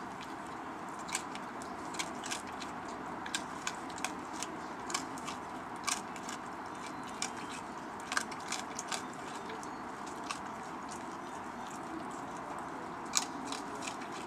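A raccoon crunching and chewing dry food pieces: irregular sharp crunches and clicks over a steady background hiss.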